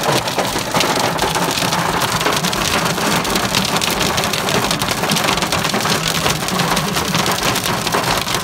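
Hail and heavy rain hitting a car's roof and windscreen, heard from inside the cabin: a dense, steady clatter of many small impacts.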